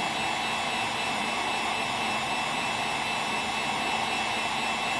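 Wagner electric heat gun running steadily: an even rush of blown air with a thin high whine over it.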